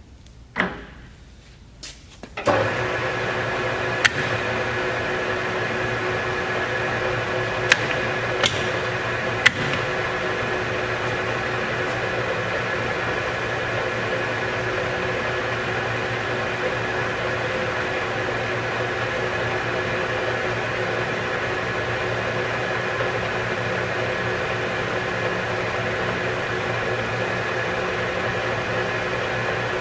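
Harrison M300 engine lathe started up with a click of its controls, its geared headstock then running steadily with a hum and a whine of several steady tones. A few sharp clicks sound in the first seconds of running.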